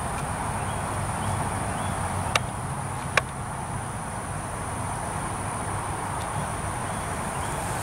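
Insects calling in a steady, high-pitched drone over a low outdoor rumble, with two sharp clicks a little under a second apart near the middle.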